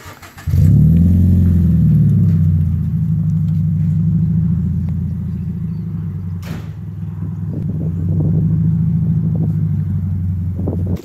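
Scion FR-S's flat-four engine and exhaust starting up about half a second in, with a brief flare in revs, then running at a steady idle.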